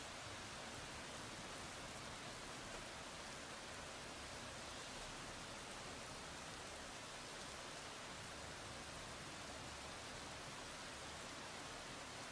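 Heavy rain falling in a thunderstorm downpour: a steady, even hiss with no thunder.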